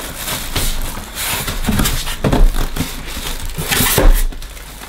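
Moulded polystyrene packing being lifted out of a cardboard box, squeaking and scraping against the cardboard, with plastic wrapping rustling; loudest about halfway and again near the end.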